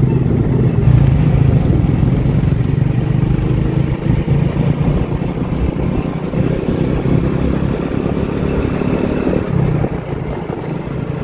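Steady low rumble of a motor vehicle on the move, engine and road noise running throughout.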